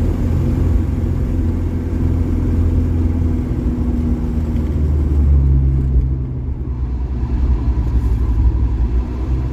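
Mercedes OM616 four-cylinder diesel engine pulling a 1968 Mercedes-Benz along the road, a steady low drone through a home-made exhaust with a Saab muffler. The note rises a little about halfway through, then eases off. In the second half a faint high squeal of the accessory belt comes in.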